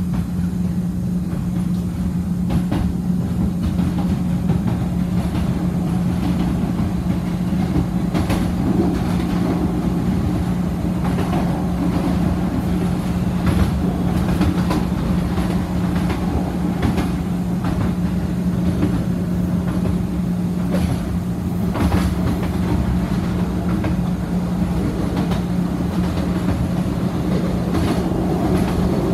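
CTA 2600-series rapid-transit railcar running at speed, heard from inside the car by the door: a steady low rumble of wheels on rail with a constant motor hum, and a few sharp clicks over rail joints.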